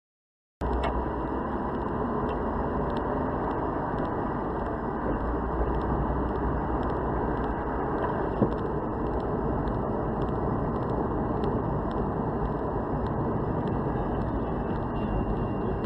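Steady road and engine noise of a car driving, starting suddenly about half a second in, with a single sharp click a little past the middle.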